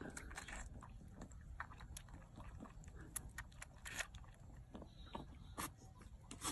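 Faint chewing and crunching: irregular crisp clicks and crunches, several to a second.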